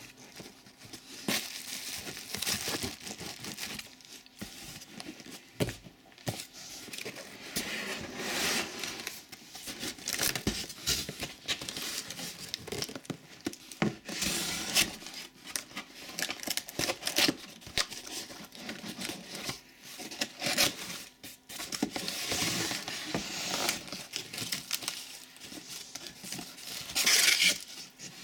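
Cardboard box inserts being pulled out and handled, with irregular rustling, scraping and tearing noises and plastic wrapping crinkling; the loudest burst comes near the end.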